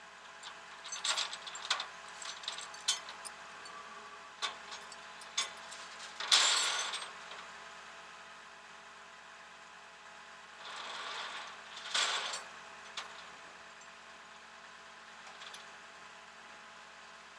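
Tow chains and hooks clinking and rattling against a flatbed's steel deck as a car is chained down, with two longer rattling runs about six seconds in and again near twelve seconds. An idling truck engine hums steadily underneath.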